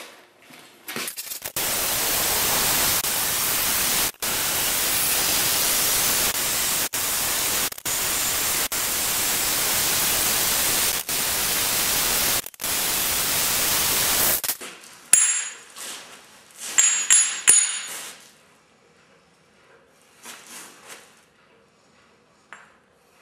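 A loud, steady hiss that breaks off briefly several times and stops abruptly, followed by a few sharp metallic clinks with a high ringing tone.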